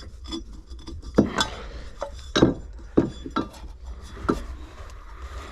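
Irregular metallic clinks and knocks from hand tools and metal engine parts being handled and set against each other, several sharp strikes a fraction of a second to a second apart.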